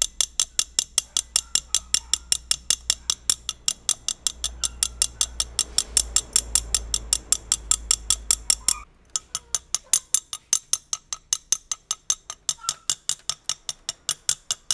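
Rapid, even tapping of one steel nail's shank on the head of another nail held against a glass bottle, about five or six sharp metallic clicks a second, with a short break about nine seconds in. Each tap chips away more glass, widening the hole through the bottle wall.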